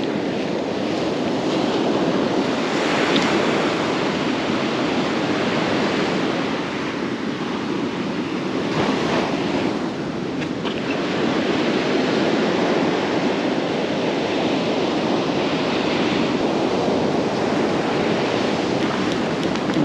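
Surf breaking and washing up on a sandy beach, with wind buffeting the microphone.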